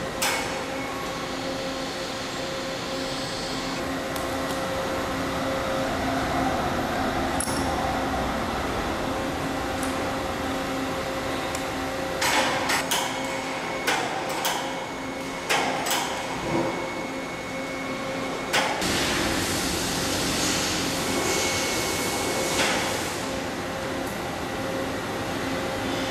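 Several sharp metal knocks come in a cluster about halfway through, as a steel plate is set down and tapped into position on magnetic clamps. Under them is a steady machine-shop hum with constant tones.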